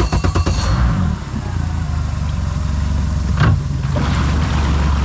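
An engine catching after a brief crank in the first second, then running steadily.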